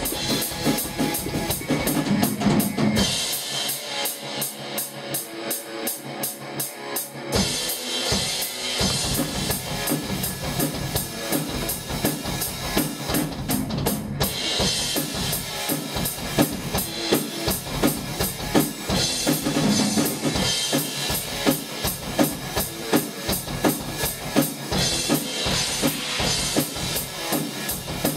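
Drum kit played at a fast thrash-metal pace: a quick run of bass drum and snare strikes with cymbals. The bass drum drops out for about four seconds a few seconds in, then comes back.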